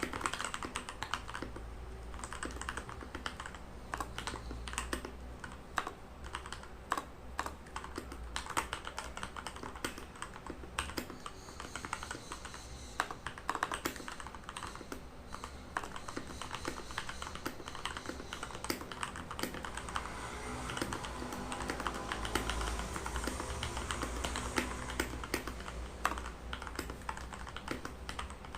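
Redragon Kumara mechanical keyboard with lubed Outemu Red linear switches being typed on steadily, a continuous run of key clacks during a typing test.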